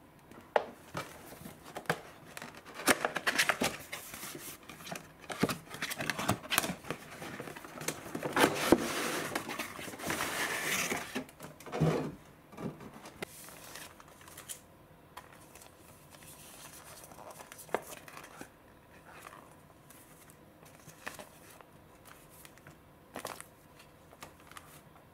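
Unboxing a plastic toy sushi-roll maker: cardboard box and paper packaging handled and opened, with rustling, crinkling and sharp taps and a long rustle a little before halfway. After that, fainter scattered clicks and taps of the plastic parts being handled.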